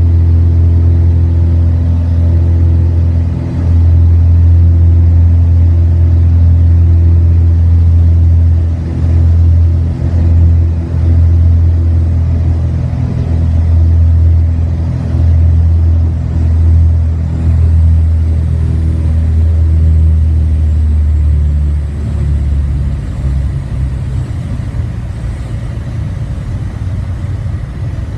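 Cockpit drone of a Piper Aztec's twin six-cylinder Lycoming piston engines and propellers on final approach and landing, wavering in a slow pulse. About three-quarters through, the engine drone falls away as power comes off, leaving a quieter, rougher rumble as the plane rolls down the runway.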